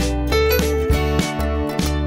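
Background music: plucked notes over sustained bass notes.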